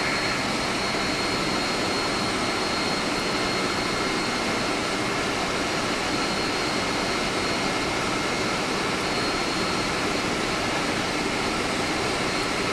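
Steady machinery noise of an air-conditioning plant room, running evenly with a thin, high steady whine through it.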